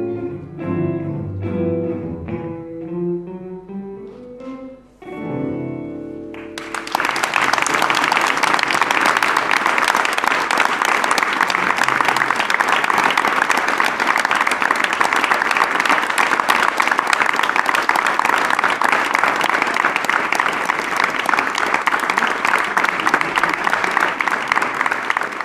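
Acoustic guitar plucking the last notes of a song for about five seconds, then audience applause breaking out and continuing steadily.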